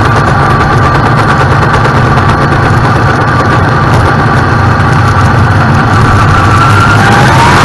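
Dirt late model's V8 engine running loud and steady at low throttle, heard from inside the car. Near the end its pitch starts to climb as the car accelerates.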